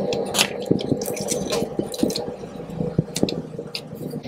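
Scattered small clicks and light taps of a screwdriver and fingers handling the clock's power-supply board, over a steady low hum.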